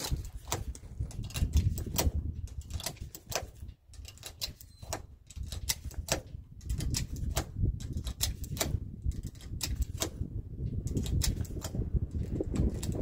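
Rapid, irregular metallic clicks of 9mm cartridges being pressed one by one into a Canik TP9SA Mod 2 pistol magazine, with a short pause about four seconds in.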